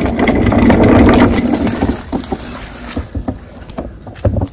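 Walk-behind lawn mower, engine off, being pushed across a concrete driveway, its wheels and deck rumbling and rattling loudly; about two seconds in it rolls onto the grass and the rumble drops to soft rustling with a few light knocks.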